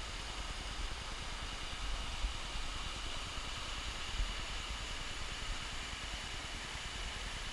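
Steady rushing noise of a rocky creek, with a low rumble on the microphone and two soft bumps about two and four seconds in.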